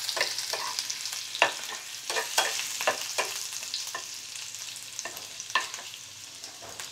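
Oil sizzling in a small non-stick pan as chopped ginger, green chillies and mustard seeds fry, with a flat spatula stirring and scraping through them. A steady hiss runs under a scattering of sharp clicks.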